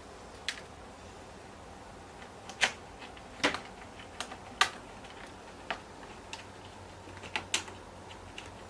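Irregular sharp clicks and taps from handling a laptop's plastic casing and small parts during reassembly, about ten in all, the loudest in the middle.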